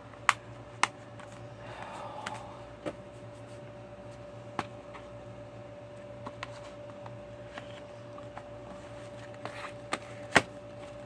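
Plastic Blu-ray case being handled: sharp clicks and taps at irregular times, two strong ones in the first second and the loudest about ten seconds in as the case is pushed into its cardboard slipcover. A steady faint hum runs underneath.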